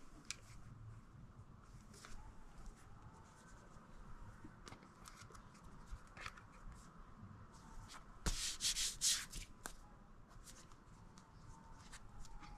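Hands handling and rubbing small objects, with scattered light clicks and a louder run of short scraping rubs about eight seconds in.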